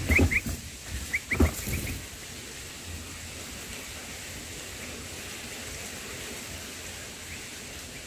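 Short, high rising bulbul chirps in two quick clusters in the first two seconds, as an adult bulbul comes to feed its begging chicks at the nest, with a couple of dull thumps among them. After that only a faint steady hiss.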